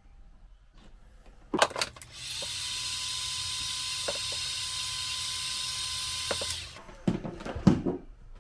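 Handheld heat gun running for about four and a half seconds, a steady fan whine and rush of air that starts and cuts off cleanly, aimed at freshly crimped wire connectors. A few clicks of handling come just before it, and knocks as it is set down.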